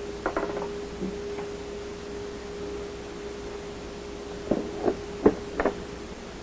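Sharp clicks and knocks of hard plastic parts and a hand tool being handled while the dishwasher door's power board assembly is unscrewed and removed: a couple at the start, then four close together near the end. A steady high-pitched hum runs underneath.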